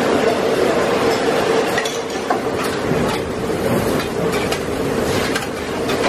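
Beaten egg sizzling in a hot black steel wok over a roaring gas wok burner, with a metal spatula and ladle scraping and clinking against the wok and a steel bowl a few times.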